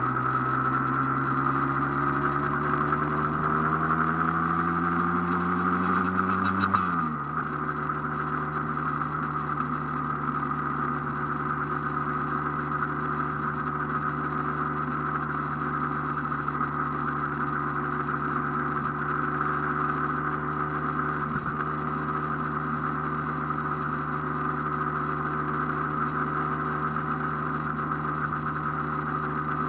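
Aprilia AF1's two-stroke single-cylinder engine running under way, its pitch rising for about seven seconds, then falling sharply and holding steady.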